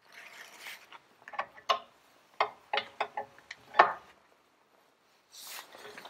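About eight sharp metallic clicks and clanks over roughly three seconds as a large adjustable spanner is fitted to and worked on the nuts of a brake backing plate to tighten them. Soft rustling comes before and after.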